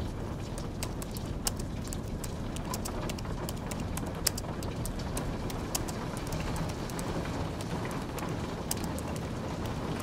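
Typing on a slim low-profile keyboard: quick, irregular key clicks, a few sharper taps among them, the loudest about four seconds in, over a steady hiss of falling rain.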